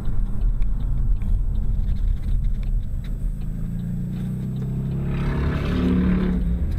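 Chevrolet Camaro's engine running at speed, a steady low rumble that climbs in pitch in the last few seconds as it accelerates, with a hiss swelling near the end.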